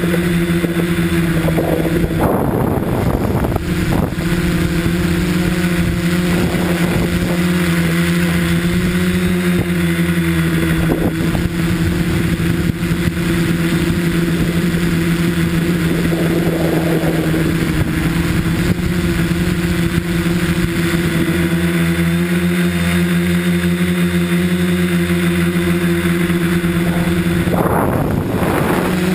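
Tricopter's three electric motors and propellers whining at a steady, fairly constant pitch, heard from a camera mounted on the aircraft. A rushing noise swells briefly a few times as it manoeuvres.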